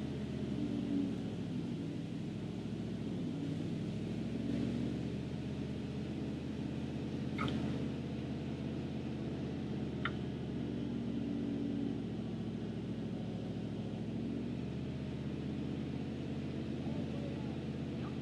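1976 Chevy C65 log truck's engine running steadily while its hydraulic log loader works, the engine note shifting a few times under load. Two short clinks about halfway through.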